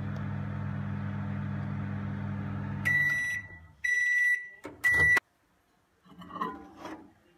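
Microwave oven running with a steady hum that stops about three seconds in as the timer finishes, followed by three high beeps. The door is then clicked open and a ceramic bowl is lifted off the glass turntable.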